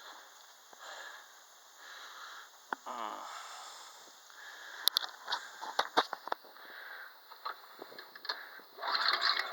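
Clicks and knocks of hands working the controls of a Honda HS80 snowblower, with a brief scraping noise near the end; the engine does not start, because its ignition switch is still off.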